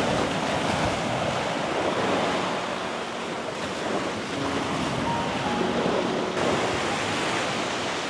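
Sea waves washing onto the shore in a steady, swelling rush, with wind buffeting the microphone.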